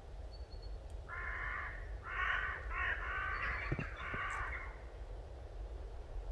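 A crow cawing: a run of harsh caws in quick succession, starting about a second in and lasting some four seconds.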